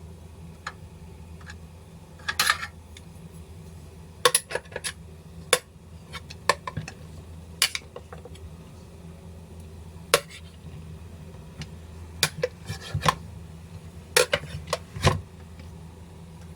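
Irregular clinks and clatters of metal kitchenware, typical of a waffle maker and utensils being handled, over a steady low hum. Some clicks come singly and some in short clusters.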